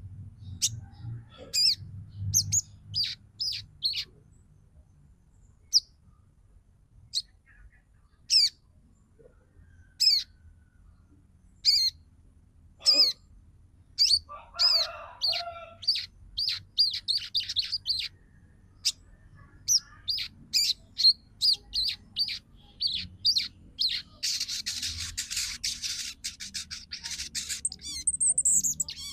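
Female sogon bird calling to a male: sharp, high, down-slurred chirps, some single and some in quick runs, with a lower harsh call about halfway through. Near the end comes a dense, hissing chatter.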